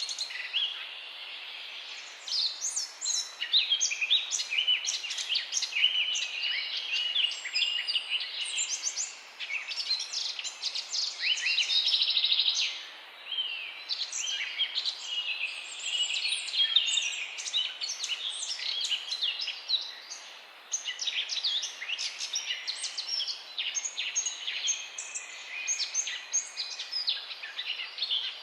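Several songbirds singing together in a dense chorus of quick chirps, whistles and trills, with a long rapid trill around the middle.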